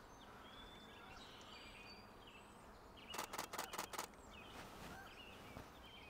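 A rapid run of camera shutter clicks, six or seven in about a second, starting a little after three seconds in, from a camera shooting in burst mode. Faint bird chirps are heard in the background.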